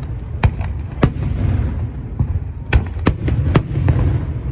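Aerial fireworks bursting: a series of sharp bangs over a continuous low rumble, with three coming in quick succession in the second half.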